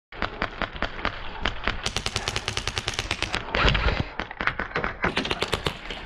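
Airsoft guns firing rapid, irregular strings of shots, a dense clatter of sharp clicks, with a louder rush of noise a little past halfway.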